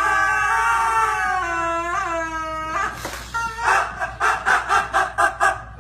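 An animal's long, siren-like howl sliding slowly down in pitch, with a wobble about two seconds in. After a short break it gives a run of quick, short repeated calls, about four or five a second.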